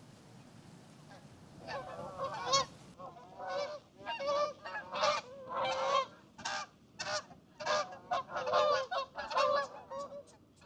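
Virginia rails calling: a long run of short, nasal grunting notes, several a second, starting about two seconds in.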